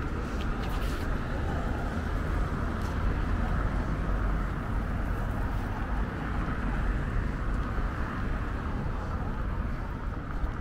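Steady outdoor street ambience: a constant low rumble and hiss, with faint voices of people passing.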